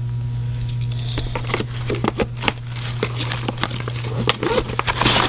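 Handling noise as a Swiss Army knife is tucked into a pocket on a fabric bag's flap: scattered rustles, scrapes and small clicks of fabric and knife, busiest near the end, over a steady low hum.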